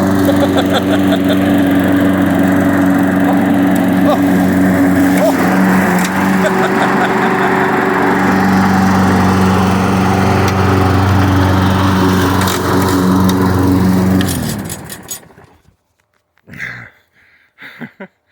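Gasoline lawn mower engine running steadily. About fourteen seconds in it is shut off and winds down to a stop.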